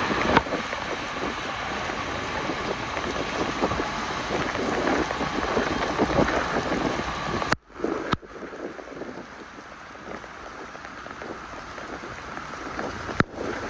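Steady hiss of rain with wind buffeting the microphone. About seven and a half seconds in the sound cuts out briefly, with sharp clicks, and comes back quieter.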